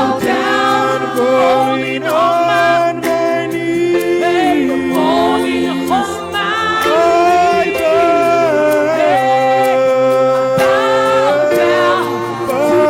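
Worship music: singing with sustained, wordless-to-the-recogniser vocal lines over steady held chords.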